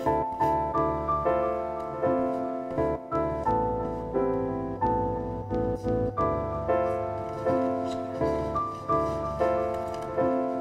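Background piano music: a slow, gentle melody of struck notes, about two a second, each fading away, with low notes underneath.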